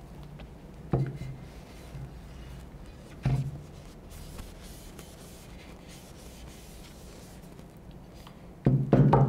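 Rubbing and scraping of cleaning on the outside of a shotgun barrel, with two short knocks about one and three seconds in and a louder clatter of handling near the end.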